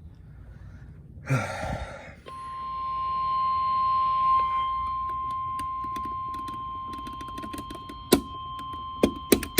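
NOAA Weather Radio warning alarm tone: a single steady beep near 1 kHz that starts about two seconds in and holds, signalling that a severe weather warning is about to be read. Before it comes a brief burst of noise, and near the end several sharp clicks.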